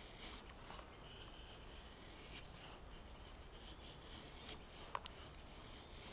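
Faint scraping strokes of a knife blade shaving curls down a wooden stick, a few irregular strokes with the sharpest at about two and a half and five seconds in.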